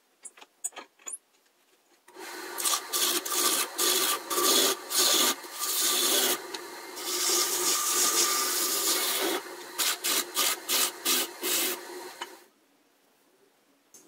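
Gouge cutting a spinning magnolia blank on a wood lathe, heard sped up four times. The cutting starts about two seconds in as a loud scraping, hissing sound that breaks on and off in many quick strokes over a steady motor tone, and stops sharply near the end.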